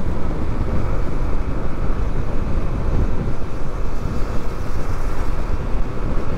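Steady wind rush and low rumble on the microphone of a motorcycle being ridden at speed, with engine and road noise mixed in.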